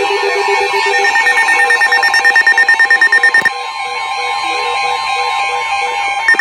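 Emergency alert signal tones: a rapidly pulsing electronic buzz starting about a second in and lasting a couple of seconds, a steadier tone, then the pulsing buzz again near the end.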